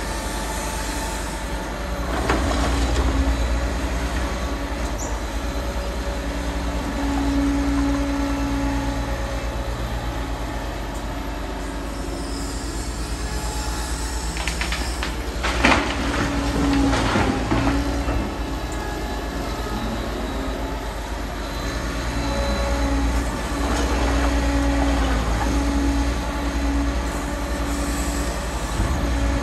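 Liebherr R940 Demolition crawler excavator running steadily, its engine note swelling and easing with load, with metallic squeals and knocks; the loudest is a crash about sixteen seconds in, with further knocks about two and seventeen seconds in.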